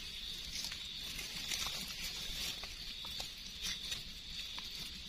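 Dry leaf litter and twigs rustling and crackling as mushrooms are picked by hand from the forest floor, with small irregular clicks. A steady high-pitched hum sits underneath.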